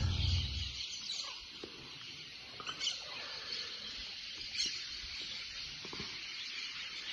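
Music fading out in the first second, then a faint steady hiss with a few small clicks scattered through it.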